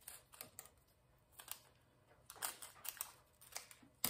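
Faint, scattered clicks and light rustling of small plastic parts being handled: diamond-painting drill bags and storage containers being sorted by hand.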